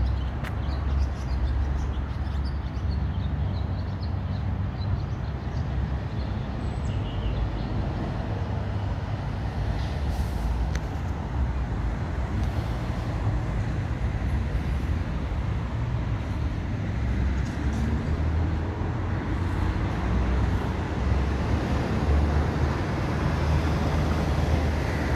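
Steady road traffic noise: a continuous low rumble with no break.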